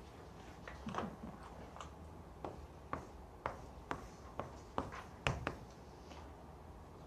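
Writing on a board or paper: a run of light, irregularly spaced taps and scratches.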